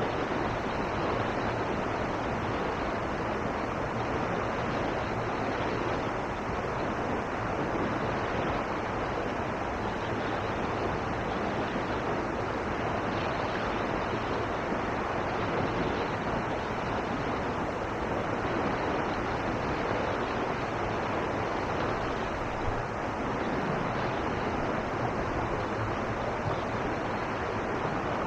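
Steady rush of water pouring over a river weir into the pool below.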